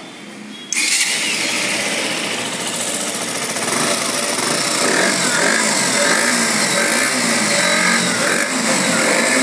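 KTM Duke 125's single-cylinder four-stroke engine starting suddenly about a second in and then running, its pitch rising and falling a few times in the second half as the throttle is blipped.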